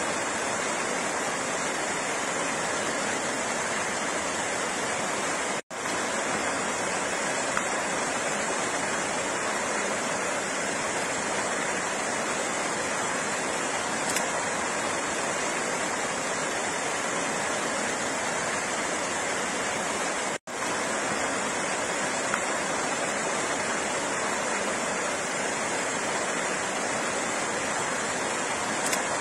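Steady rush of flowing water, an even hiss without rhythm or tune, cutting out for an instant twice, about six seconds in and about twenty seconds in.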